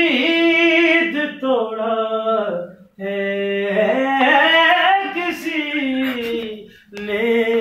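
A man singing a slow Urdu song without instruments, holding long notes that bend up and down through the words. The line comes in two drawn-out phrases with a short break about three seconds in.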